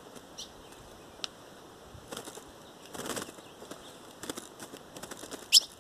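A hand-held ultramarine grosbeak (azulão) fluttering its wings in short bursts at a cage. A few brief high chirps are heard, the loudest a quick rising chirp near the end.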